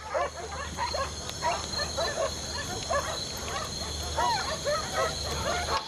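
Several dogs barking in quick, overlapping bursts, with a low steady hum underneath that stops near the end.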